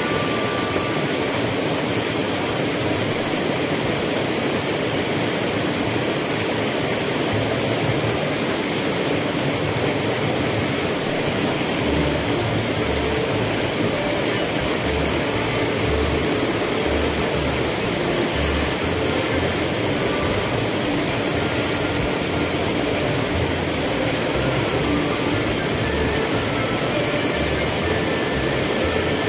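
Waterfall pouring: a loud, steady rushing roar of falling water.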